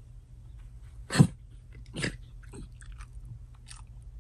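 Small dog sniffing and snuffling at the carpet, with a few short, sharp sniffs, the loudest about a second in.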